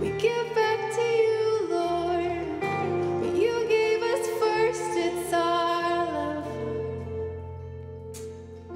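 Live worship song: a woman sings lead over a band of guitars and keyboard. About six seconds in her line ends and the band holds on sustained chords.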